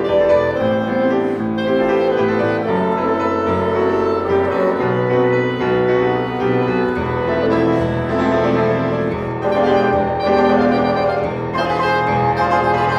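Clarinet, bassoon and grand piano playing together in a tango piece, with long held low notes under the piano and the clarinet's line.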